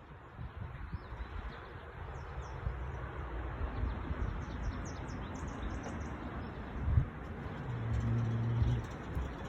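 Strong gusty wind buffeting the microphone, building about two seconds in, while small birds chirp throughout. There is a thump about seven seconds in and a brief low hum near the end.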